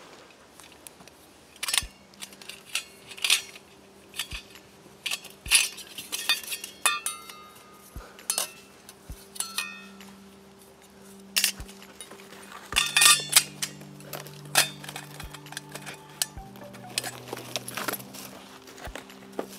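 Stainless steel parts of an Ohuhu wood gas camping stove clinking and knocking together as they are handled and fitted into one another. The clinks come irregularly, some with a short metallic ring.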